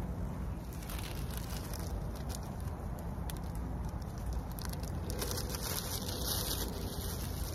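Cooking over a small wood fire in a Bushbox XL twig stove: steady crackling with sharp pops and a sizzling hiss that grows louder about five seconds in.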